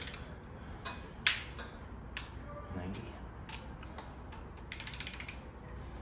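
A wrench clicking on cylinder head bolts of an LY5 5.3L V8 as they are turned through the 90-degree angle-torque step that stretches them, in short runs of ratchet-like clicks with one sharp metallic snap about a second in.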